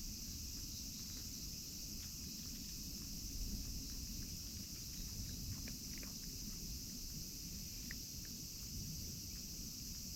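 Steady high-pitched chorus of insects, with a low rumble underneath and a few faint small clicks about two-thirds of the way in.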